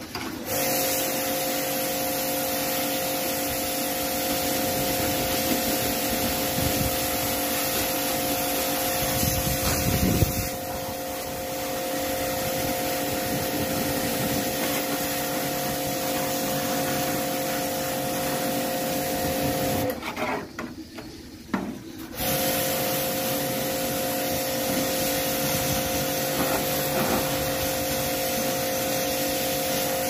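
AC service jet pump running with a steady motor hum while its spray gun hisses a high-pressure water jet onto an air conditioner's indoor unit. The pump and spray stop for about two seconds roughly two-thirds of the way through, then start again.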